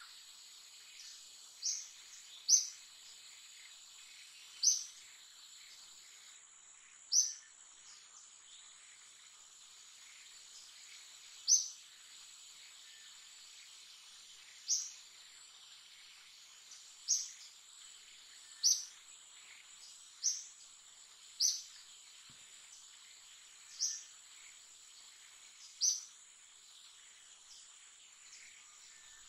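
Forest ambience: a steady high-pitched insect drone under a short, sharp high chirp repeated about a dozen times, every one to four seconds.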